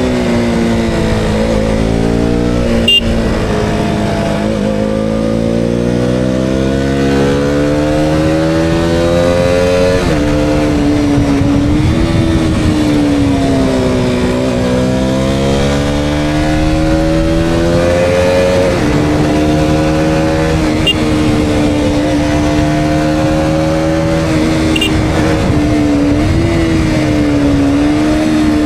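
KTM Duke 200's single-cylinder engine pulling on the move, its revs climbing and falling again and again as the rider works the throttle and gears, with a sharp drop about ten seconds in.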